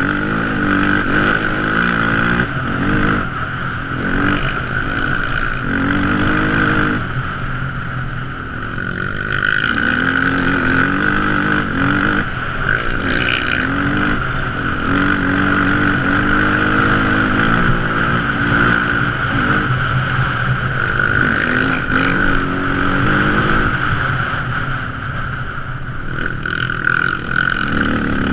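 Quad ATV engine running under way, its pitch rising and falling again and again with the throttle, with a steady high whine throughout.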